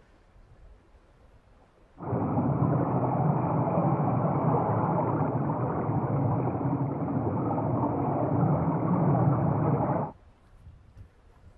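Loud, steady underwater rumble of a bottom trawl's groundrope and rollers dragging across the seabed. It starts suddenly about two seconds in and cuts off sharply about eight seconds later.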